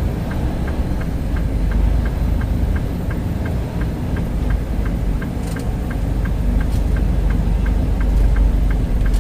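Semi-truck running down the road, heard from inside the cab as a steady low rumble. A light, even ticking repeats about two to three times a second over it.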